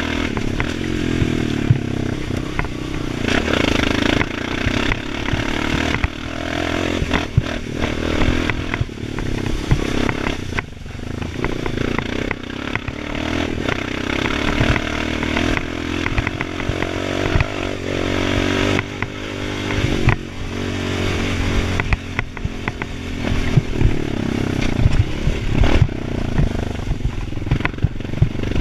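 2013 Honda Foreman 500 ATV's single-cylinder engine running through its HMF aftermarket exhaust, revving up and down with the throttle as the quad is ridden. Frequent knocks and rattles come from the machine going over rough ground.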